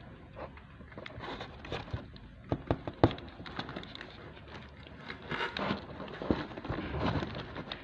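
Kittens suckling at a feeding bottle: irregular wet clicks and smacks, with rustling as they squirm.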